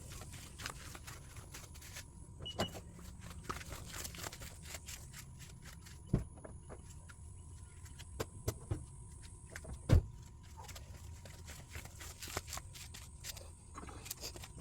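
Scattered metallic clicks and clunks of hands-on work on a truck's rear axle and parking-brake assembly, with two sharper knocks about six and ten seconds in.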